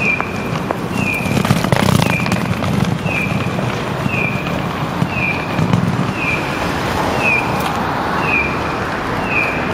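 Audible pedestrian crossing signal giving a bird-like electronic chirp: one short, slightly falling note repeated evenly, a bit faster than once a second. Low street-traffic rumble runs beneath it.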